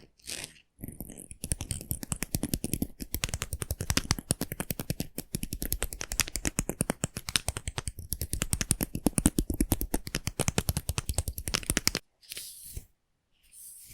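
Close-miked hair being worked for ASMR: a long run of rapid, even crackling strokes through the hair that stops abruptly about twelve seconds in.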